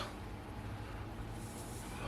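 Steady low background hum with faint hiss; no distinct event stands out.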